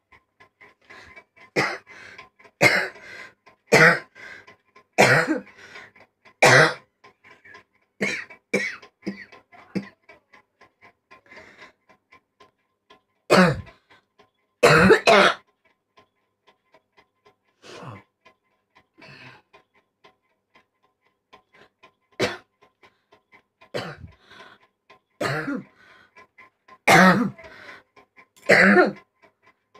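A person coughing again and again: single hard coughs and short runs of two or three every second or two, with pauses of a few seconds between fits, some coughs voiced and hoarse. The coughing comes from something caught in the throat.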